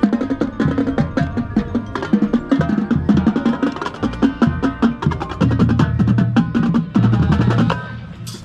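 Marching band playing: brass with the baritone horn loud and close, over drumline snare and bass drum strokes. The music drops away near the end.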